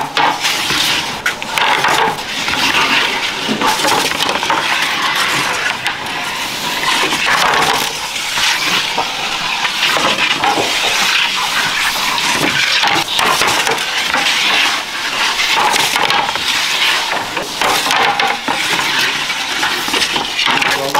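Metal baking trays and a long metal peel clinking and scraping against the mouth and floor of a wood-fired bread oven as trays of croissants are slid in, with a continuous clatter of small metallic knocks.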